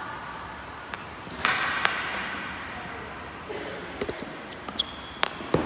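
Field hockey sticks striking balls and the hard balls hitting the goalkeeper's pads and the goal, heard as a series of sharp, echoing knocks.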